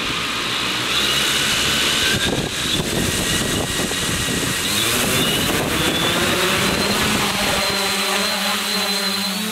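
Vulcan Mantis multirotor's electric motors and propellers buzzing, picked up by the camera it carries, with high whines gliding up and down as it manoeuvres. About eight seconds in it settles into a steadier hum.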